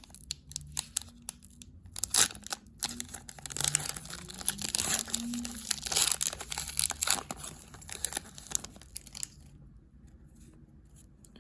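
Foil wrappers of Upper Deck hockey card packs being torn open and crinkled by hand: a run of rips and crackles that thins out for the last couple of seconds.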